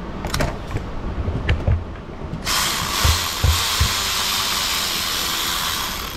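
A few light clicks and knocks, then an air ratchet runs for about three and a half seconds with a steady hiss of exhaust air, spinning out a bolt on the engine's front cover.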